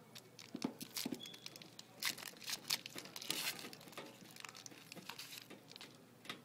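2013 SP Authentic hockey trading cards being slid and flipped against one another in the hands, a string of crisp crinkling and clicking sounds that is busiest in the middle.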